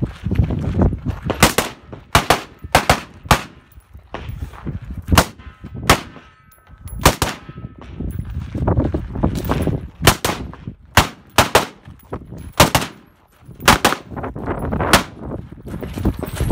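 Semi-automatic rifle fire: about fifteen sharp shots, in quick pairs and short strings with brief pauses between them.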